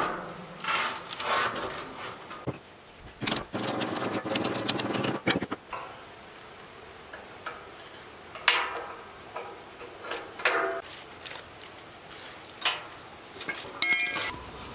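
Hand tools clinking and knocking on a steel machine frame as parts are bolted on, with a rapid run of ratchet-like clicks a few seconds in and a ringing metal clank near the end.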